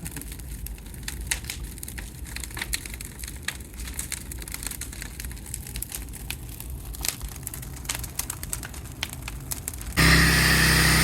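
Bonfire crackling, with scattered sharp pops and snaps over a low rumble. Near the end a loud, steady motor hum starts suddenly.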